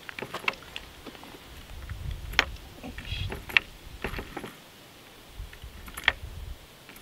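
Scattered light clicks and metallic clatter of handguns and cartridges being handled on a table, with two sharper clicks near the middle.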